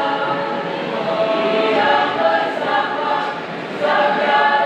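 A mixed choir singing unaccompanied in parts, held notes with new phrases starting about two seconds in and again near the end.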